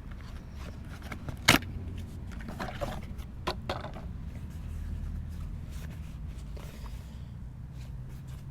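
Handling of a portable tire inflator's packaging and carry case: one sharp click about a second and a half in, then a few softer clicks and rustles, over a steady low rumble.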